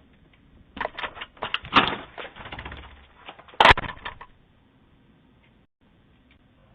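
A rapid, irregular run of sharp taps and knocks lasting about three and a half seconds, with one loud, sharp click near the middle, then quiet.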